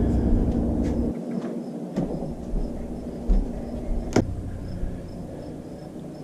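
Handling rumble and knocks from a handheld camera carried while walking, with a sharp knock about four seconds in; the rumble eases off in the last second or so. Insects chirp faintly in the background.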